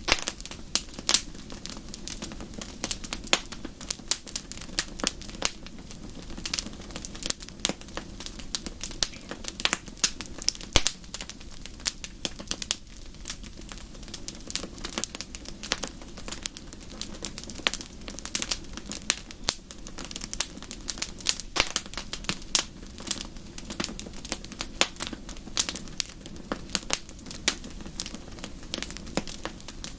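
Wood fire crackling in a fireplace: many irregular sharp pops and snaps over a steady low rumble of burning.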